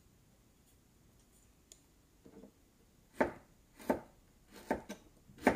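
Kitchen knife chopping vegetables on a cutting board: quiet at first, then about six sharp, uneven knife strikes from about two seconds in.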